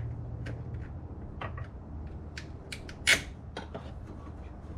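Scattered light clicks and taps of long-nose pliers working the spring clamp on a PCV breather hose, with one sharper click about three seconds in, over a steady low hum.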